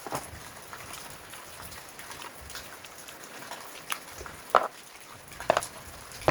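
Irregular light taps and clicks, with a few louder sharp knocks from about four seconds in.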